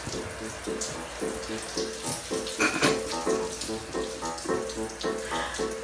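Water running or splashing steadily, like a tap filling a sink, under background music with a repeating melody. The water sound cuts off abruptly at the very end.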